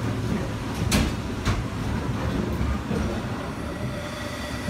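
Steam pumping beam engine at work, a steady low mechanical rumble. Two sharp metallic clanks from its valve gear come about a second in and again half a second later.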